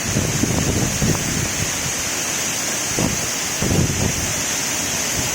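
Waterfall rushing steadily, with wind buffeting the microphone in gusts through the first second and again near four seconds in.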